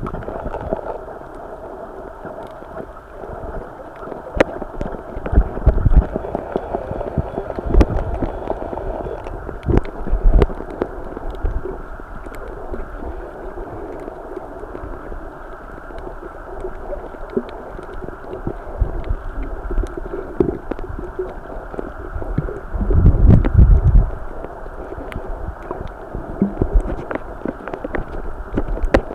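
Muffled underwater water noise picked up by a camera held below the surface while snorkeling, with irregular low rumbling surges and scattered faint clicks. The longest and loudest surge comes about three quarters of the way through.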